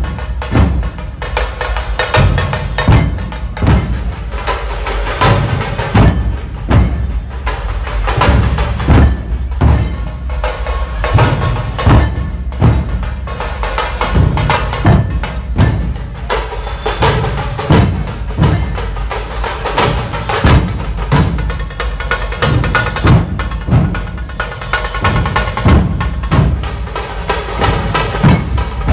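Dhol-tasha troupe playing: large dhol barrel drums beaten in a driving rhythm of heavy beats, with sharp tasha strokes cracking over them.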